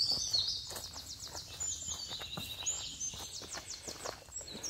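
Forest songbirds singing high, with quick trills of rapidly repeated notes, over soft footsteps on a dirt trail.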